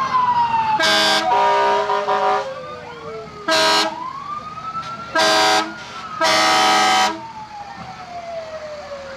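Fire engine siren winding slowly down in pitch, broken by four loud blasts of a fire engine's air horn, the last the longest.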